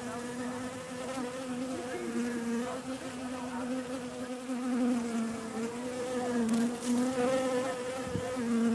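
A bee buzzing in flight: one steady hum whose pitch wavers slightly, getting somewhat louder in the second half.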